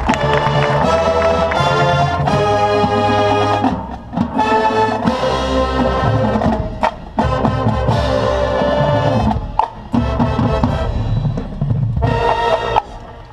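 Drum and bugle corps playing: brass chords held over drums and percussion, broken by several short gaps and sharp hits, with a final loud chord that cuts off sharply near the end.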